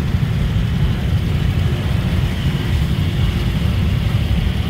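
Steady low rumble of a jammed street: motorbike and car engines idling and crawling close by.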